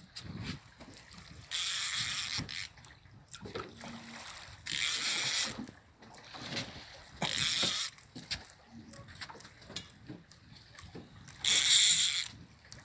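Water splashing against a boat's hull in four short bursts, with small knocks and clicks in between.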